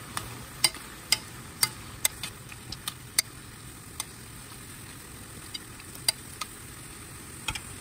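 Metal spoon clicking and scraping against a metal frying pan as chunks of liver are stirred, over a steady sizzling bubble of the liver boiling in its own water. The clicks come about twice a second for the first three seconds, then thin out to a few scattered knocks.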